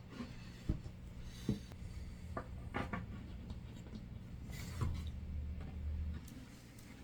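Scattered light knocks and clicks of parts and screws being handled while an aquarium stand is put together, about half a dozen in all, over a low steady hum.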